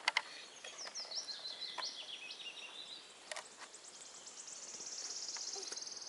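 Songbirds singing in the woods: a run of high, falling chirps, then a fast high trill that grows louder and cuts off near the end. A few sharp clicks near the start and about three seconds in.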